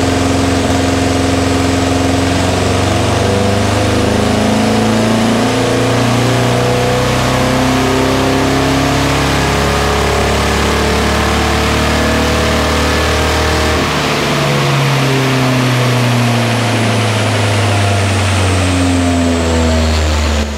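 1977 Datsun 620's 1.5-litre four-cylinder engine at full throttle on a chassis dyno during a power run, its revs climbing slowly under load. The engine note changes abruptly about fourteen seconds in and keeps going at full volume.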